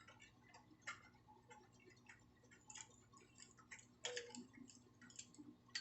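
Faint, irregular clicks and taps of plastic ring-light parts being handled and fitted together, with a slightly louder knock about a second in and another about four seconds in.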